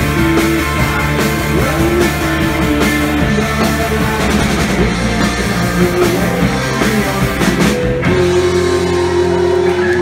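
Live rock band playing loudly: electric guitars, bass and a drum kit. About eight seconds in the drumming stops and a held chord rings out as the song closes.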